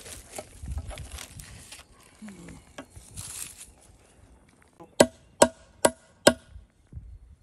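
Plastic zip-top bag rustling, then four sharp hammer blows about half a second apart on geodes in the bag on a concrete slab, each with a short metallic ring.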